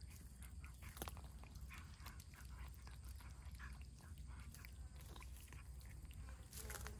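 Stray cat with poor oral health chewing raw fish: quick, irregular wet chewing and smacking clicks.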